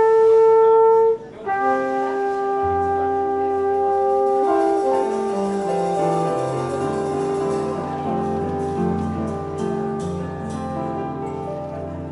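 Jazz quintet of trumpet, tenor saxophone, piano, double bass and drums playing the slow closing bars of a ballad. A loud horn note is held for about a second, then the horns sustain long notes while a line below steps downward in pitch, with piano and bass underneath.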